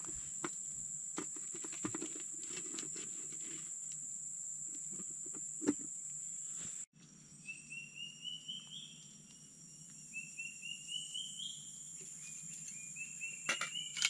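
Rainforest ambience: a steady high-pitched insect drone with scattered clicks and knocks from a campfire and cooking pot. About seven seconds in, a call of short notes climbing step by step in pitch repeats three times over the insects.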